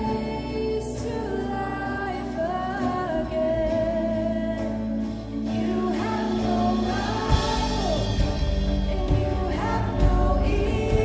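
Live contemporary worship band: a female lead vocal sings over electric bass, drums and guitars. The drums come in harder about seven seconds in.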